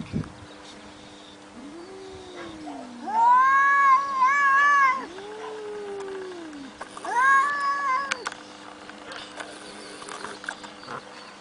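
Domestic cats caterwauling in a fight standoff: low drawn-out growling moans alternate with louder high, wavering yowls, two of each, with quiet gaps between.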